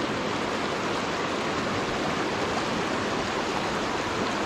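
Small creek water rushing steadily over rocks in a riffle.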